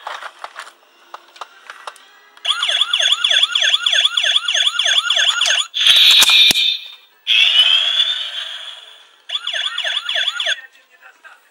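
Electronic siren sound effect from a Tomica Hyper City Rescue toy police car's speaker: a fast warbling wail of a few cycles a second. It is broken by a loud noisy burst and a hissy effect with a rising tone, then warbles again briefly near the end. Clicks of the toy being pressed come before the siren starts.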